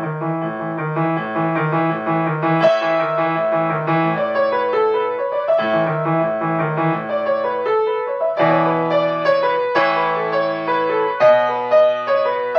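Acoustic grand piano playing an elementary-level piece: a steady repeating low-note pattern in the left hand under a simple right-hand melody, getting fuller and louder about eight seconds in.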